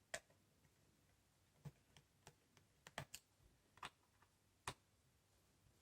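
Light, irregular clicks, about a dozen, from a Torx screwdriver turning the captive screws on the underside of a Framework Laptop; one screw is tighter than the others and makes a weird clicking noise as it turns.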